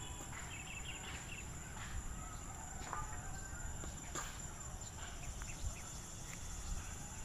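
Faint outdoor ambience: a low steady rumble with a few short bird calls, like fowl clucking.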